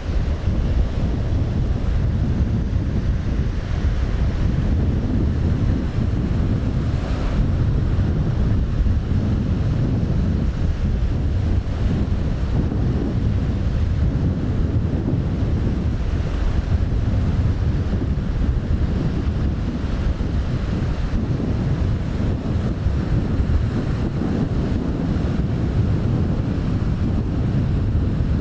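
Strong wind buffeting the microphone as a steady low rumble, with the rush of waves on a rough sea behind it.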